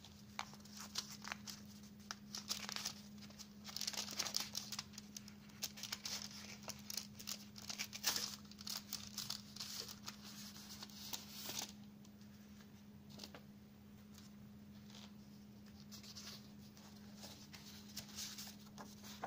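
Paper envelope being torn open by hand and the folded letter slid out and unfolded: tearing, crinkling and rustling paper, busiest in the first twelve seconds and lighter after.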